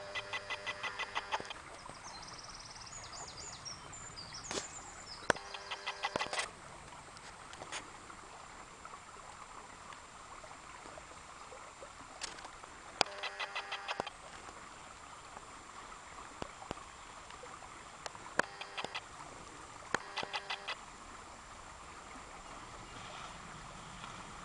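Shallow creek water running steadily over stones, with about five short bouts of a bird's rapid, repeated pulsed call and a few high chirps near the start.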